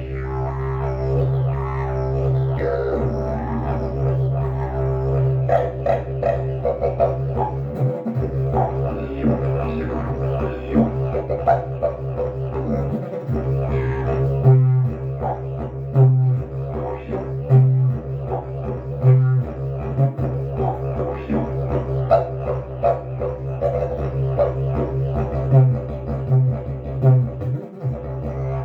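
Custom agave slide didgeridoo with an aluminum slide tube, played as a continuous low drone on one steady pitch. Rhythmic accents pulse over the drone, and brief breaks cut into the low tone, more often near the end.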